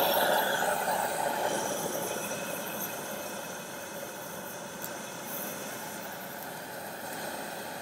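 High-pressure propane wok burner (a 100,000 BTU cast-iron jet burner) burning with a steady hiss of gas and flame, loudest at first and settling somewhat quieter after two or three seconds.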